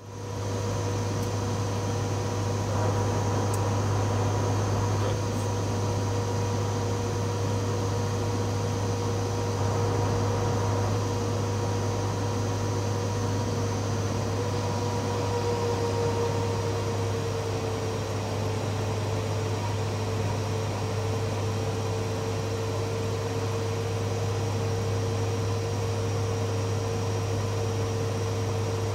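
Steady drone of a Fokker 50's turboprop engines and propellers heard from inside the cockpit, with a strong low hum and a steady mid-pitched tone that dips slightly about halfway through.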